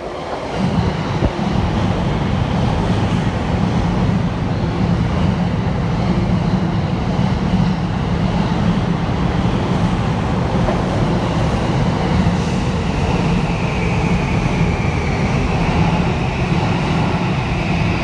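An E231-series and E233-series electric commuter train passes through the station at speed without stopping. Its wheels on the rails and its running gear make a loud, steady rumble that starts about half a second in, and a high whine rises in the last few seconds.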